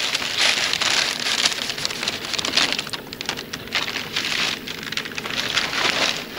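Dried carrot and beetroot pieces poured into plastic bags: a dense rattling patter like rain, steady for about three seconds, then in several shorter pours.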